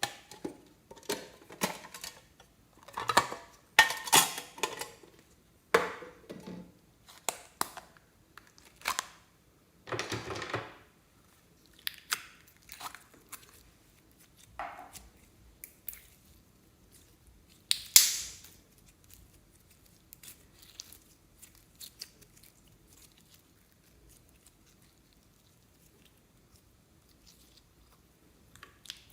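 Slime being squished, pressed and stretched by hand: a series of short wet, crackly squelches, most packed together in the first half and thinning out to occasional soft ones in the second half.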